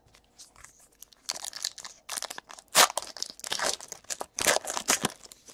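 Trading-card pack wrapper being torn open and crinkled by hand: a run of crackling rustles that starts about a second in, with a few sharper crackles.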